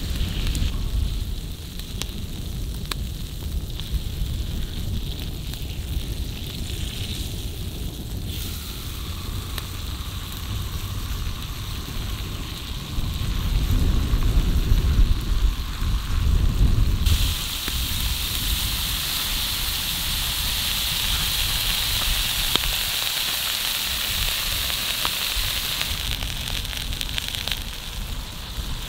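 Ribeye steak sizzling on a cast-iron griddle over a crackling wood fire, with a low rumble that is loudest around the middle. The sizzle turns into a much louder, steady hiss about two-thirds of the way through.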